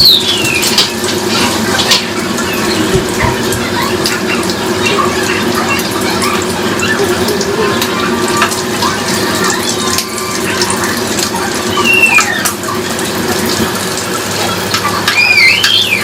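Running water, as from a tap into a sink, steady and fairly loud, with a few brief high squeals about twelve seconds in and near the end.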